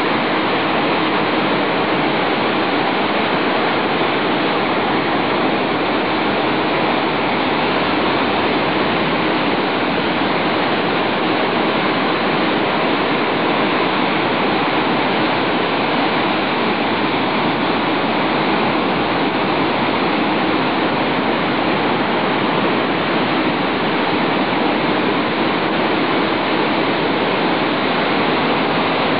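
Continuous, even roar of breaking ocean surf, with no single wave standing out.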